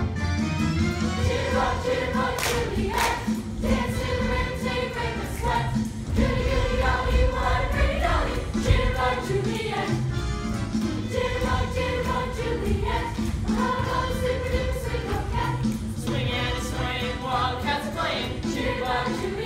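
A large cast of young performers singing together in chorus over upbeat accompanying music, as in a stage musical's ensemble dance number.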